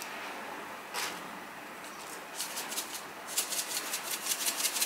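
Plastic salt shaker shaken over a bowl, the salt grains rattling inside it in fast, even shakes, several a second, that begin a little after two seconds in and carry on steadily. A single click comes about a second in.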